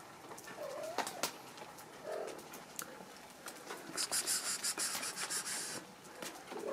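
A kitten scampers into leafy undergrowth, rustling and crackling through the plants for about two seconds from about four seconds in. Faint bird cooing and small clicks sit underneath.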